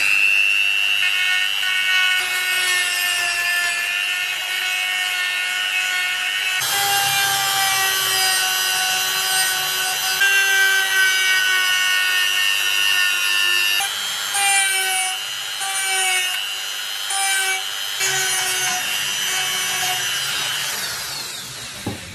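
Handheld rotary tool with a sanding drum whining at high speed as it sands the cast metal frame of a toy revolver. It spins up at the start, its pitch dips several times in the second half as the drum is pressed into the metal, and it winds down near the end.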